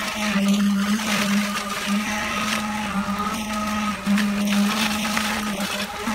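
A machine motor running steadily at a high, even hum, with a few short dips in pitch and level.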